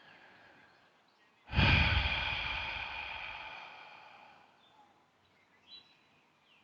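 A single struck bell-like tone: it starts suddenly about a second and a half in, rings with several steady pitches at once, and fades away over about three seconds.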